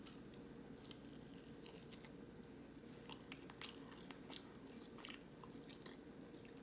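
Faint close chewing of a battered vegan nugget, with scattered soft crunches and mouth clicks, over a steady low hum.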